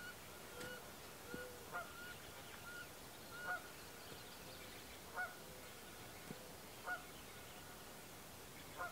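Geese honking, faint: a short honk about every one and a half to two seconds, five times.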